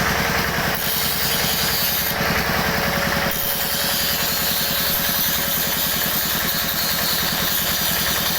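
Small engine running steadily at idle, with an even, rapid pulsing.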